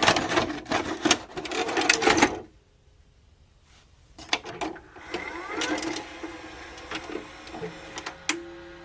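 Rapid mechanical clattering and clicking for about two seconds, then a quiet stretch, then scattered clicks and knocks over a faint steady tone.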